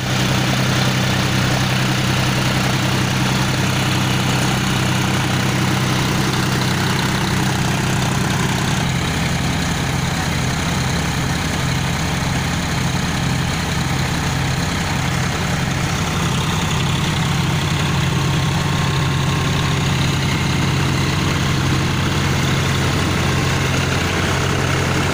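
John Deere tractor's diesel engine running steadily while it drives a tractor-powered thresher, with the thresher's machinery whirring and rattling over it. The engine note shifts slightly about nine seconds in.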